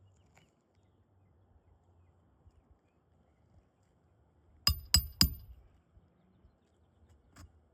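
Three quick metal-on-metal strikes about a quarter second apart, each with a brief high ringing, and a fainter tick near the end, from metal tools during roof shingle repair work.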